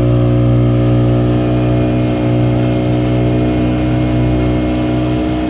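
40 hp outboard motor running at a steady speed while towing a banana boat, with the rush of water and wind over it.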